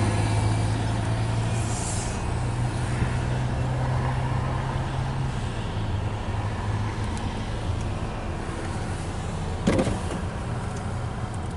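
A vehicle engine running with a steady low hum, which drops away about halfway through, and a short sharp knock near the end.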